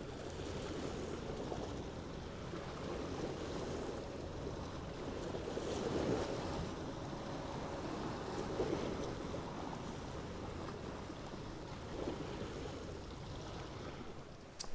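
Sea waves washing against the shore, swelling louder a few times, with wind buffeting the microphone.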